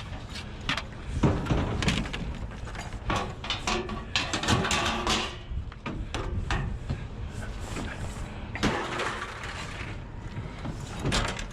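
Scrap items being handled and moved: irregular knocks, clanks and rattles, with some rustling between them.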